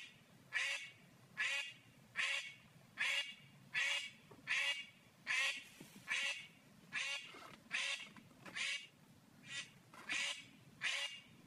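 A duck calling over and over: short, high-pitched calls repeated at a very even pace, a little over one a second.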